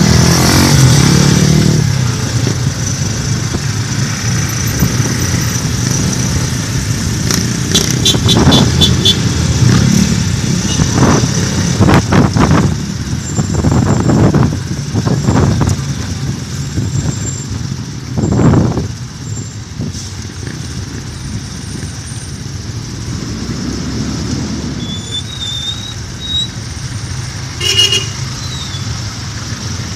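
Motorcycle engine of a tricycle running steadily while riding through traffic, with other vehicles rushing past several times and short horn toots, one near the end.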